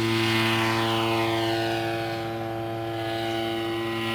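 Radio-controlled model airplane's propeller engine running steadily as the plane takes off and climbs away, a droning buzz with a higher whine that falls in pitch over the first two seconds.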